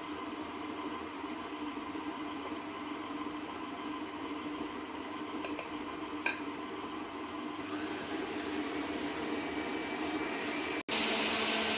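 Kenwood stand mixer's motor running steadily, its beater creaming butter, sugar and egg in the steel bowl. Two light clicks come about halfway through, and the sound drops out for an instant near the end.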